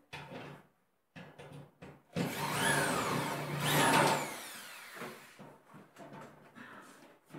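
Electric power drill running into a wall in two loud bursts, each ending in a falling whine as the motor spins down, with scattered knocks and clatter before and after.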